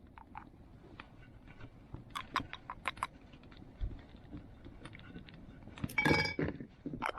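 Metal camp cookware being handled: scattered light clicks and clinks, a quick run of sharper clinks a couple of seconds in, and a louder metallic clink with a brief ring near the end.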